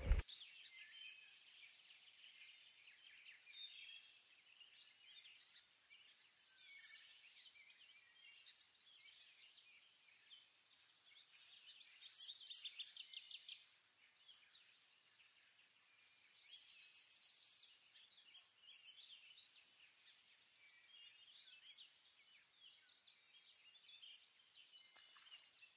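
Faint high-pitched bird-like chirping trills in short bursts a few seconds apart, over near silence.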